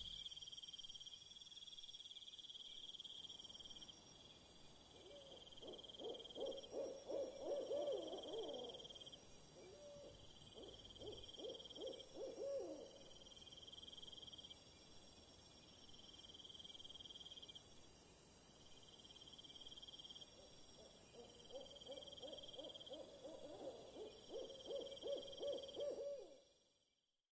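Faint night-time ambience: steady high insect chirping in long pulses, with low, wavering hoot-like calls in three spells, about five seconds in, again around ten seconds, and from about twenty-one seconds. It fades out near the end.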